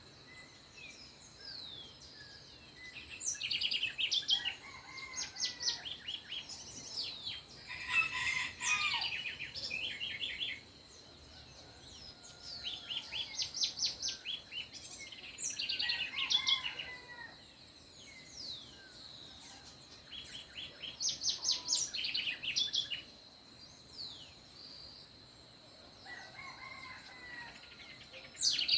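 Dawn chorus: songbirds singing in short, rapid high-pitched trills that come every few seconds, with a rooster crowing among them.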